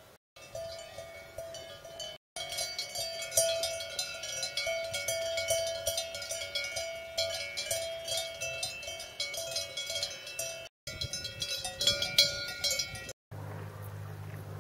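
Cowbells on grazing cattle clanking irregularly, many bells ringing at once, the sound broken by short cuts. Near the end, a brief stretch of low rumble replaces the bells.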